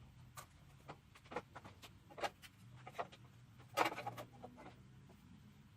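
Scattered light clicks and knocks, a few single ones and then a short cluster about four seconds in, as of tools and small parts being handled during work on a lawn mower engine.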